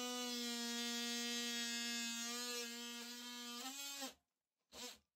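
Oscillating multi-tool with a sharp wood-cutting blade buzzing steadily as it cuts gently through a wooden lath behind plaster; the buzz wavers slightly and then stops about four seconds in.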